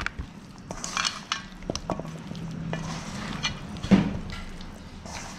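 Hands tossing raw chicken pieces in flour in a stainless steel bowl: soft squishing with irregular knocks of the meat against the metal, the loudest about four seconds in.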